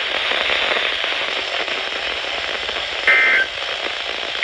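Steady static hiss from a weather radio broadcast, then about three seconds in a short burst of two-tone digital data: the first of the EAS/SAME end-of-message bursts that close the weekly test alert. A second identical burst begins right at the end.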